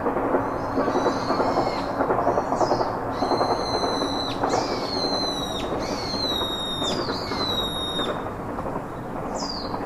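Songbird calling with a run of clear, drawn-out whistled notes, each ending in a quick drop in pitch, over a steady low rushing background noise.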